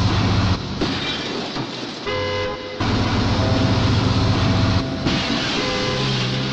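Edited sound-effect sequence: a low, buzzing drone over hiss that cuts off and restarts abruptly several times, with a brief horn-like tone about two seconds in.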